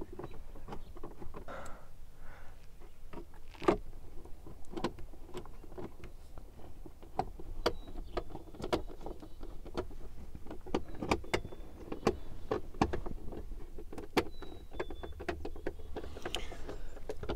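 Irregular plastic clicks, taps and knocks as a pickup truck's instrument cluster is worked into its opening in the dashboard trim.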